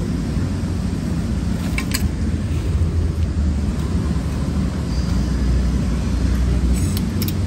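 Steady low background rumble, with a couple of brief light clicks about two seconds in and near the end.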